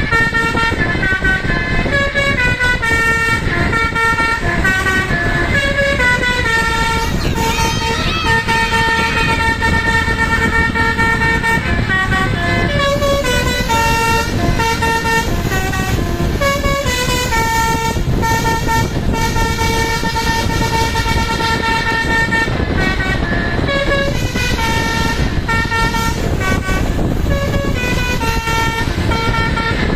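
Bus telolet basuri horn playing a tune of held notes that step up and down, the phrase repeated several times, over the steady rumble of bus engines and road noise.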